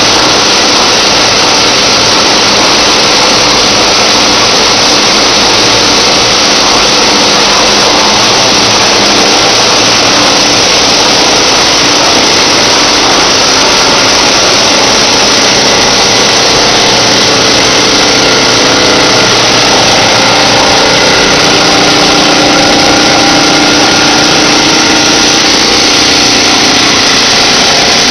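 Steady, loud mechanical din of a PET bottle recycling and washing line in operation: electric motors, belt and screw conveyors and washing units running together, with a few steady tones over the noise.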